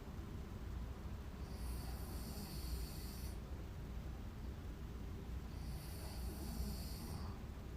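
A sleeping woman snoring, with a slow, regular breathing cycle: two long, hissy breaths about four seconds apart over a steady low rumble.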